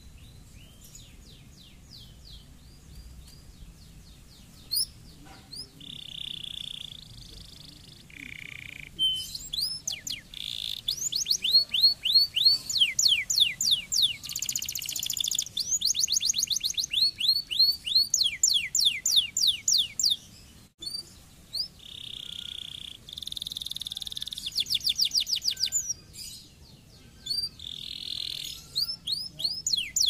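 Domestic canary singing: fast trills of rapidly repeated falling notes and buzzy rolls, in phrases with short breaks. The song starts softly a few seconds in and is loud from about a third of the way through.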